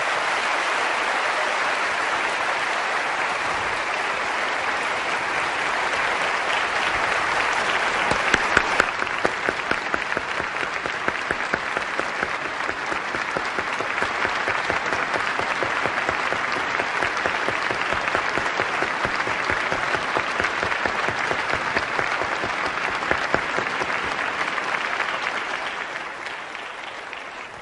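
Audience applauding at length, a dense crowd of hand claps that tapers off near the end.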